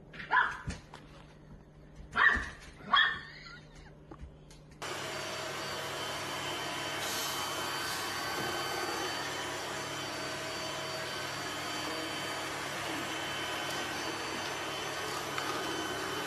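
A puppy barks three times, short and sharp. Then a robot vacuum cleaner runs steadily, a constant whirring hum with faint steady whines.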